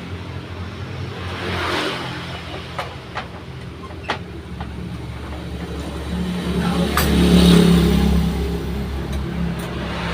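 A motor running steadily, swelling louder about six seconds in, with a few sharp clicks.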